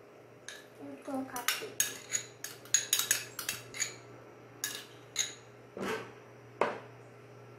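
Metal spoon scraping and clinking against a small ceramic bowl as butter is scooped out, a quick run of sharp clinks for the first few seconds, then a few more spaced out.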